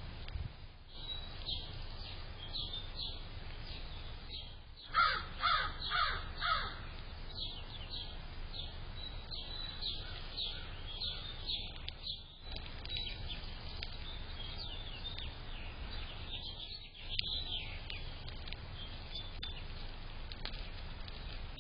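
Birds calling: a run of about four loud, harsh calls about five seconds in, over steady thin, high chirping of small birds.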